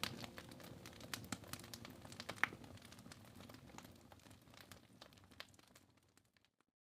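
Wood fire crackling in a fireplace: scattered small pops and snaps, one sharper pop about two and a half seconds in, fading out to silence near the end.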